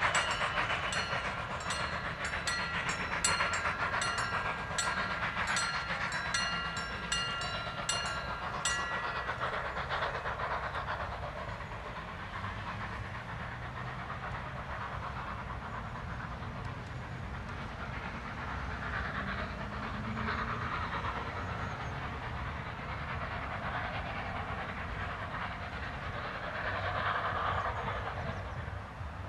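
Steam-hauled passenger train running past and away: a quick, regular run of sharp clicks with high ringing tones for the first nine seconds or so, then a steady lower rumble.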